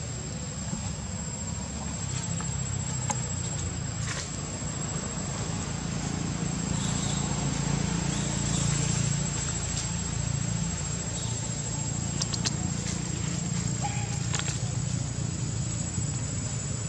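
Steady high-pitched insect drone over a low rumble, with a few brief clicks scattered through.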